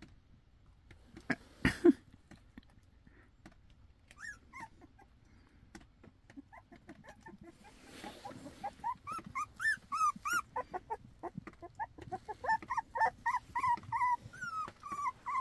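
Young puppies whimpering in short, high squeaky whines that bend up and down, a few at first, then several a second through the second half. A couple of knocks sound near the start.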